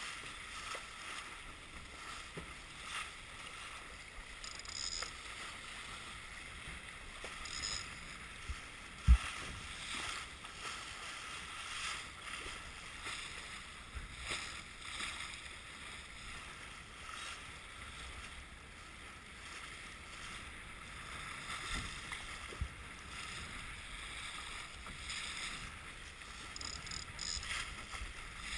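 Steady rush of water and wind aboard a sailboat under way, with scattered knocks from the boat. One sharp knock about nine seconds in stands out above the rest.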